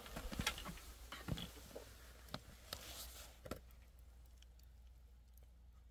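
Wood fire burning low in a traditional clay firebox beneath an iron cauldron: faint, irregular crackles and ticks from the embers, thinning out after about three and a half seconds.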